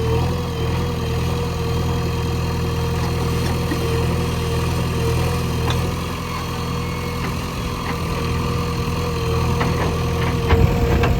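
Backhoe loader's diesel engine running steadily, with a steady higher whine over the low engine note; it gets a little louder about ten and a half seconds in.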